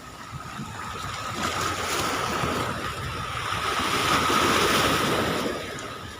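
High-tide sea waves surging and washing in, a dense rushing that swells to its loudest about four to five seconds in and eases near the end, with a steady high-pitched tone running through it.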